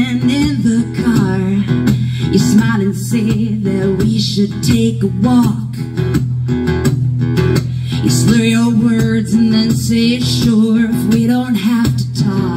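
Live music: an acoustic guitar strummed in a steady rhythm, with a woman singing, amplified through a small PA.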